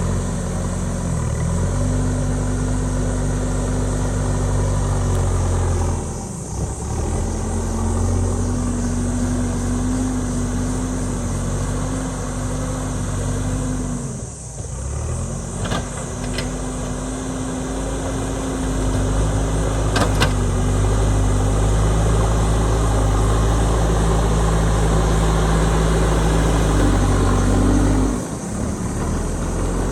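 JCB backhoe loader's diesel engine working under varying load, its note dipping and recovering three times. A few sharp metallic clanks sound near the middle.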